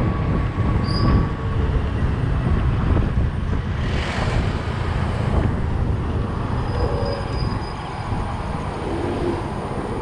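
Steady rumble of wind buffeting the microphone and road noise from a Honda Activa 125 scooter riding along a street, easing a little near the end as the scooter slows.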